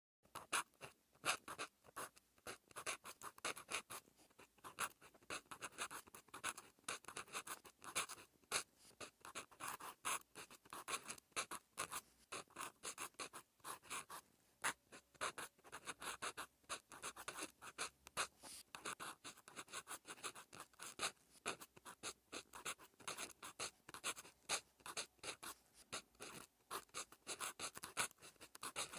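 Pen tip scratching across lined notebook paper while writing Korean handwriting: a quick, uneven run of short scratchy strokes and tiny taps, one per pen stroke.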